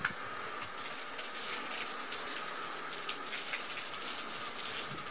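Water from a hose jet pattering and hissing on a corrugated galvanized steel roof, steady like heavy rain on a metal roof.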